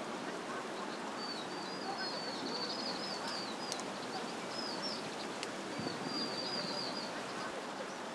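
A small songbird twittering in rapid chirps from about a second in, with a gap about five seconds in and a shorter run near the end, over a steady background hiss.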